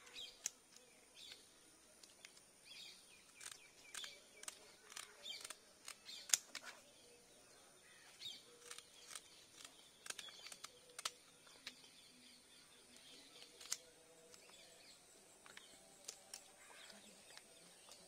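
Kitchen scissors snipping through the fins of a karimeen (pearl spot) fish: irregular sharp snips, the loudest about six seconds in. Faint bird chirps in the background.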